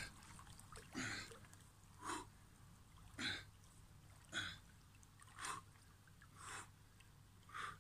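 A man exercising waist-deep in a pool, making short faint puffs about once a second, seven in all, in time with his forearms opening and closing through the water.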